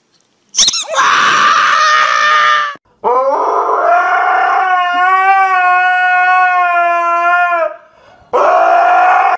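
Husky howling in long drawn-out howls, with brief breaks about three and eight seconds in; the middle howl is the longest and holds a steady pitch.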